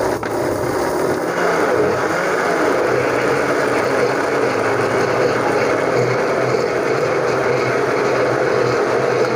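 Countertop electric blender running steadily, churning papaya, sugar and cold milk into a milkshake.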